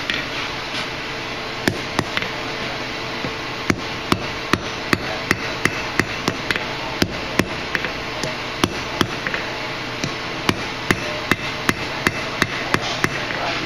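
Blacksmith's hand hammer striking a hot steel bar on an anvil: two blows, a pause of over a second, then a steady rhythm of about two and a half blows a second. The bar end is being shaped into a scarf for a forge weld.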